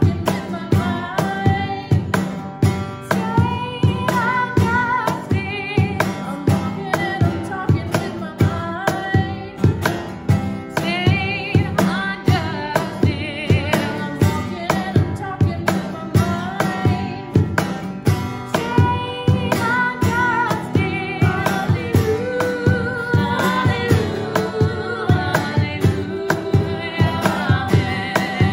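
Two women singing a gospel song in harmony, with a strummed acoustic guitar and a cajón slapped in a steady beat.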